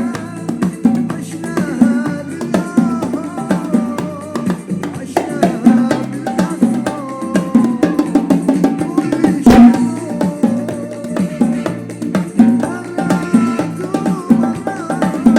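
Arabic pop song playing: a steady percussion beat under a winding melodic line of instruments, with one sharp accent hit about nine and a half seconds in.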